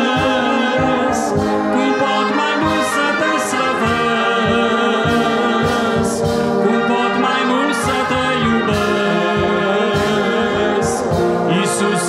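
Brass band of trumpets, trombones, horns and a sousaphone playing a hymn tune, with a steady pulse of low bass notes.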